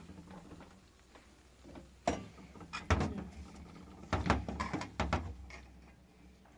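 A run of sharp knocks and clatters, six or seven in all, starting about two seconds in and loudest around the middle, as things are handled in a small room.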